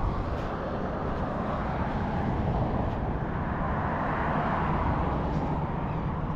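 Steady road traffic passing on the causeway, swelling a little around the middle as a vehicle goes by.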